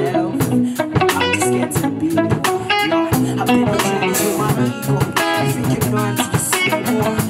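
Live band playing: electric guitar and bass guitar over a drum kit, a steady beat throughout.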